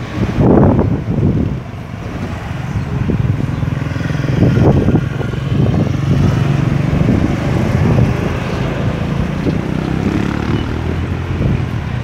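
Cars and pickup trucks driving past close by: engine hum and tyre noise, with one engine's steady hum loudest through the middle.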